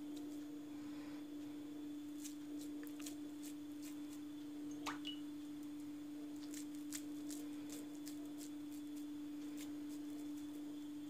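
Wet hands squeezing and pressing minced meat along a kebab skewer: soft squelching with many small clicks and a short squeak about five seconds in, over a steady hum.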